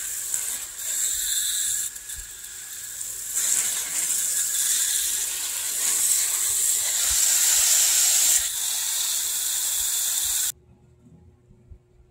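Water spraying from a garden hose nozzle onto the soil and plants in a metal tub planter, a steady hiss that grows louder for a few seconds in the middle. It stops abruptly about ten seconds in, leaving only a faint low hum.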